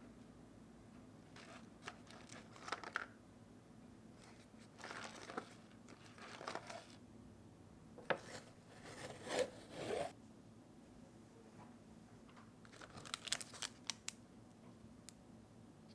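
Plastic instant-noodle packaging being torn open and crinkled, in about five short bursts of rustling with a few sharp clicks, over a faint steady hum.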